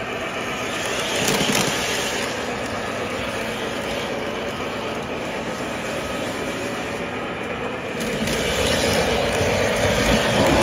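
O-gauge model trains rolling on the layout's track, a steady rumble of wheels and motors. It grows louder from about eight seconds in as a model streetcar passes close by.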